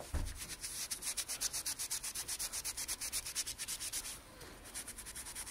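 Quick back-and-forth scrubbing strokes on the touchscreen keypad of a Yale deadbolt lock, rubbing off sticky adhesive residue left by a melted plastic screen protector. The strokes come several a second and fade about four seconds in, with a few lighter ones near the end.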